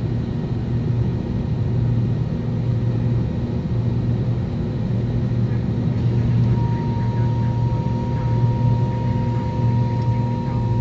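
Steady drone of engines and rushing air heard inside a passenger airliner's cabin in flight, with a strong low hum. A thin, high steady tone joins about two-thirds of the way through.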